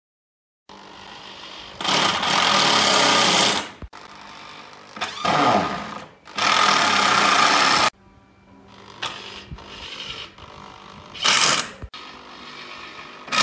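Corded electric drill driving screws into pallet wood: three long runs of one to two seconds, the motor's pitch sliding as it loads up in one, then three short bursts.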